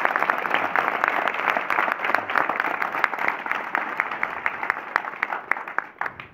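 A group of schoolboys clapping their hands in applause. The clapping is dense at first, thins to scattered claps and dies away near the end.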